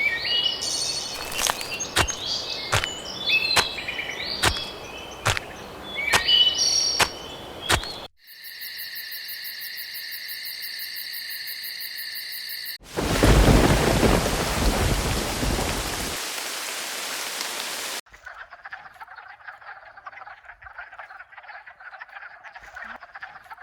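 A sequence of separate sounds: chirping, croaking animal calls with sharp clicks for about eight seconds, then a steady electronic tone, then a sudden loud rush of noise like rain or thunder that slowly fades. It ends on a faint crackling texture.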